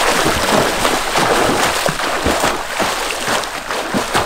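Swimmer's freestyle strokes and kicks splashing and churning pool water: a continuous rush of water broken by repeated splashes from the arms and feet.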